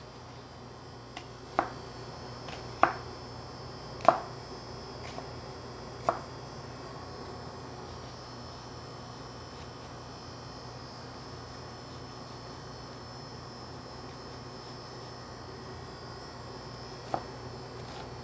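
Kitchen knife dicing an onion on a cutting board: about five separate sharp chops in the first six seconds, then one more near the end. A steady hum and faint high whine run underneath.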